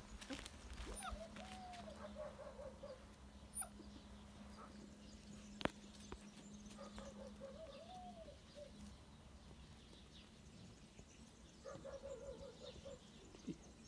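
Puppy whining faintly in three short bouts, each a rising and falling whine that breaks into quick stuttering whimpers. A single sharp click comes near the middle, and a low steady hum runs through the first half.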